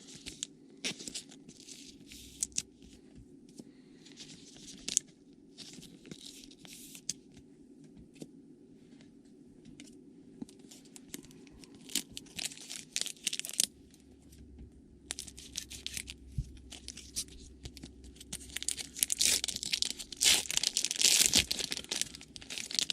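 Trading-card packs being torn open and their wrappers crinkled and handled: a run of short, scratchy tears and rustles, loudest and busiest near the end.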